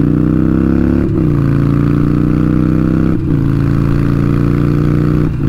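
Harley-Davidson Sportster Iron 883's air-cooled V-twin accelerating through the gears. The engine note rises, then drops sharply at each quick upshift, about one, three and five seconds in.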